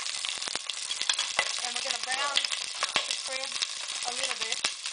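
Blue crabs frying in hot olive oil with garlic in a stainless steel pot: a steady sizzle with frequent sharp crackles and spits. Short snatches of a low voice come and go over it.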